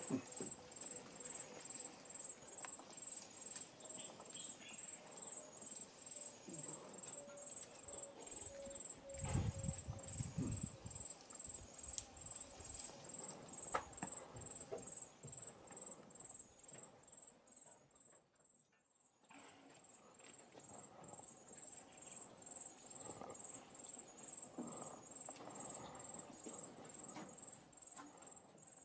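Insects chirping: a high, faint chirp repeating evenly a few times a second, with scattered soft knocks and a louder low rumbling burst about a third of the way in. The sound drops out briefly about two-thirds through.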